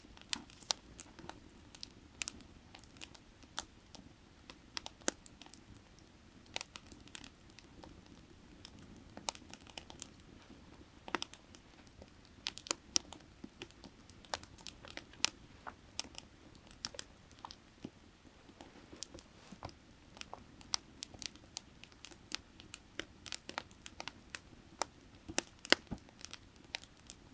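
Firewood burning with irregular crackles and sharp pops, several a second, over a steady low rush of creek water.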